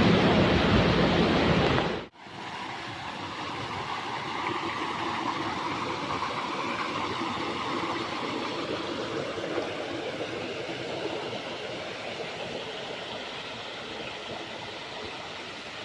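Steady rush of falling water. It is louder, with a deep rumble, for the first two seconds, then cuts to a quieter, even rush.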